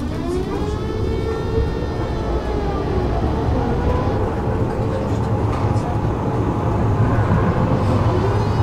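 Tram heard from inside, its electric traction motors whining as it pulls away, the pitch rising at first and then holding, over a steady low rumble of the running car.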